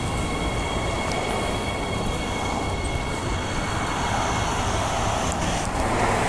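Three-car Transperth electric train pulling away from the platform, its steady high whine fading as it moves off, with freeway traffic noise swelling near the end.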